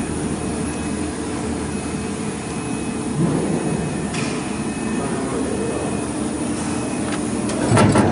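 CNC router running as its gantry travels to home on all axes: a steady mechanical rumble with a faint steady whine, and a louder clatter near the end.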